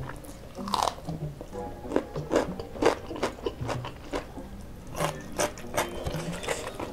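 Close-up crunching and chewing of raw cucumber slices: irregular crisp bites and wet chewing, with music in the background.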